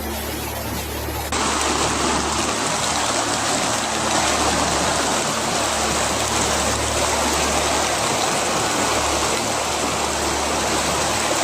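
Rushing floodwater: a steady, even rush of flowing water that cuts in abruptly about a second in, after a quieter stretch with a low hum.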